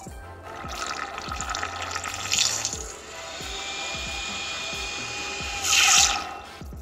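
Water sloshing and bubbling as a lit LED headlight bulb and its driver are moved about under water by hand. There is a brief louder splash about two and a half seconds in and the loudest burst of splashing and bubbles near the end. Background music plays underneath.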